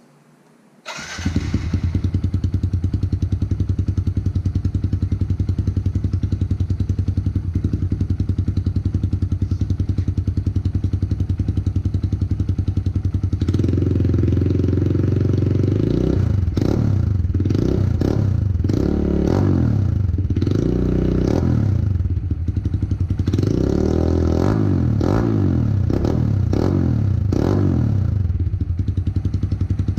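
Kawasaki KLX110L pit bike's small single-cylinder four-stroke engine through a Yoshimura RS2 full exhaust, coming in about a second in and idling steadily, then revved in repeated throttle blips through the second half.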